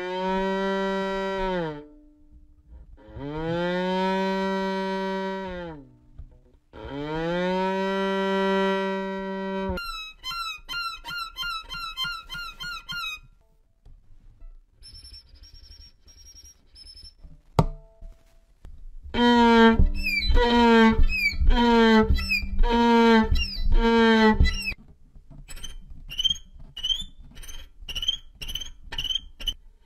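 Violin imitating animal calls: first three long, lowing moos of a cow, each bending down in pitch at the end, then quick chirping figures and a thin, very high broken tone. After a single click come about seven short repeated pulses, and near the end fast high squeaky chirps imitating a grasshopper.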